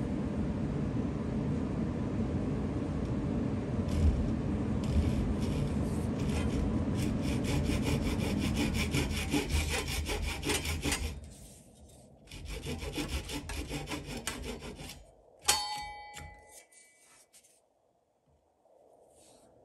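Hand saw cutting through a wooden block in rapid back-and-forth strokes. The sawing pauses briefly about halfway, resumes, and then stops with a sharp metallic clink that rings for a moment.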